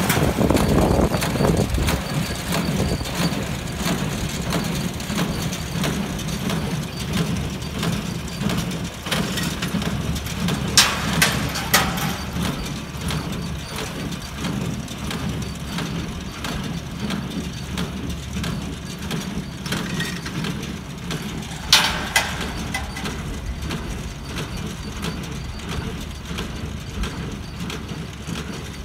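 70 hp Kubota tractor diesel working under load as it pulls a New Holland small square baler, with the baler's steady mechanical clatter. A few sharp metallic clanks come about 11, 12 and 22 seconds in, and the sound slowly fades.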